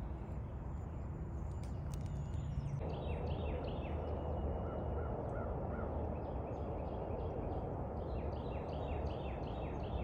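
Birds calling in quick series of short, falling notes, several overlapping, over a steady outdoor background noise; the calls begin about three seconds in and come again in a burst near the end.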